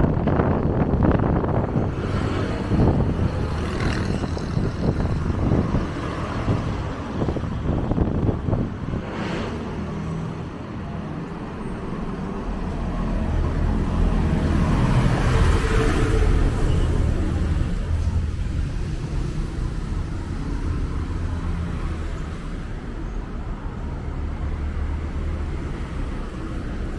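Road traffic passing on a city road, with a bus's engine and tyres swelling as it passes a little over halfway through, the loudest moment.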